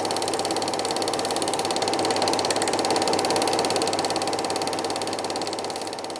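Film projector running: a steady, rapid mechanical clatter over a whirring hum. It fades out toward the end.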